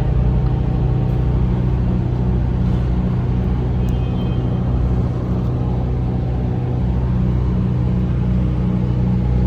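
Diesel truck engine idling steadily, a low hum with a faint even pulse about twice a second.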